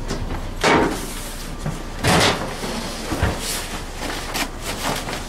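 Knocks and scrapes of metal pans and utensils as chopped barbecue meat is scooped and handled. The two loudest knocks come about a second and two seconds in, with a duller thump a little later.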